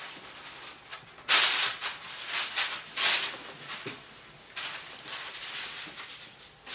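A sheet of baking paper rustling and crinkling as it is handled and laid flat on a table, in several separate bursts, the loudest about a second in.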